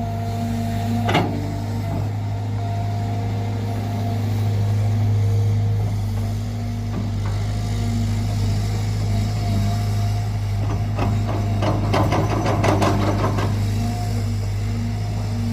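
Cat 320GC excavator's diesel engine running steadily, with a single knock about a second in and a burst of rapid clanking strokes between about eleven and thirteen seconds in.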